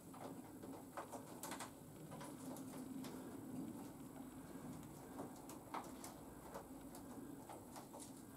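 Faint, irregular clicks and light taps of small parts and tools being handled during motorcycle wiring work, over a low steady hum.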